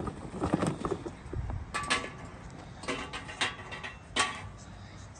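Charcoal briquettes being handled: soft rustling at first, then a few sharp clicks and knocks, some ringing briefly, the loudest about two seconds in.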